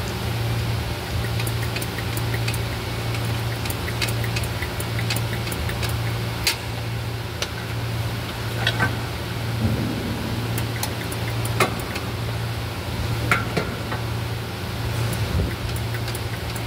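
Scattered sharp metallic clicks and clinks of hand tools on bolts while an automatic transmission is being bolted in under a lifted vehicle, over a steady low hum.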